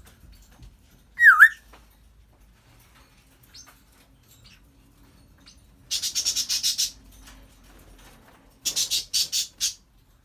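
African grey parrot giving one loud whistle that dips and then rises, about a second in. Later come two bursts of rapid, hissy pulses, a few seconds apart.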